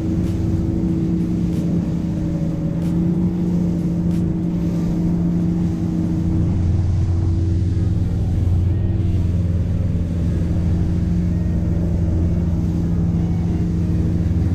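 Motorboat engine running steadily at cruising speed, a loud even hum. The low part of the hum grows stronger about six seconds in.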